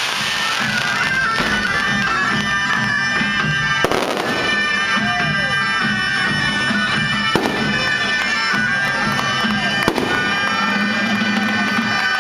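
Fireworks bursting in a finale, with a few sharp bangs, over loud music of long held notes above a steady low drone.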